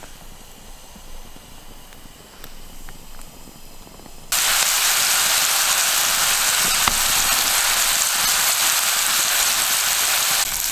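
Faint crackling of a campfire, then about four seconds in, pork chops go into a hot cast iron pan and start sizzling loudly and steadily.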